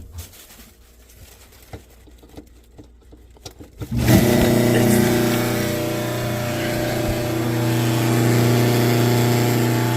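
A few light clicks and knocks, then about four seconds in a garbage disposal motor switches on and runs with a loud, steady hum. The motor had been locked and was freed by turning it with a hex key from underneath.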